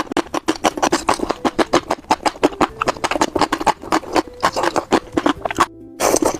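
Close-miked crunchy chewing and biting: rapid crisp crunches, several a second, with a brief pause near the end.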